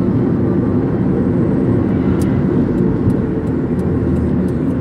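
Steady rumble of a car driving at highway speed, engine and tyre noise heard from inside the cabin.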